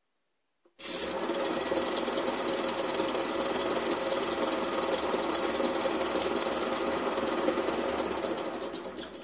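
Homemade wooden lathe running, driven by an old garage motor through a fan belt: a steady mechanical whirr with fine, fast rattling. It starts suddenly about a second in and winds down near the end.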